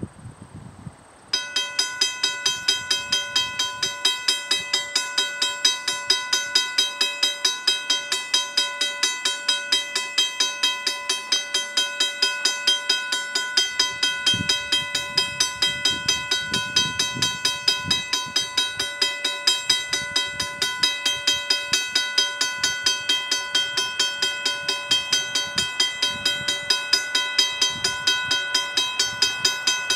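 Railroad crossing warning bell switching on about a second in and ringing in rapid, regular strikes, signalling an approaching train.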